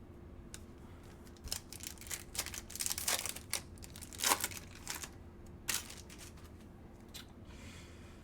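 Foil wrapper of a trading card pack being torn open and crinkled: a run of sharp rustling and tearing noises from about one and a half seconds in until nearly six seconds in.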